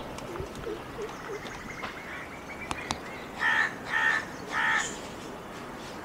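A crow cawing three times in quick succession, each caw short and harsh, about half a second apart.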